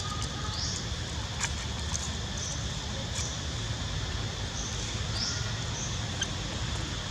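Baby long-tailed macaque giving a few short, high-pitched rising squeaks, the clearest about half a second in and about five seconds in.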